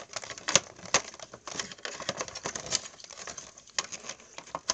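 Handling noise: irregular light clicks and rustles as small plastic toy figures and the camera are moved about by hand over a carpet.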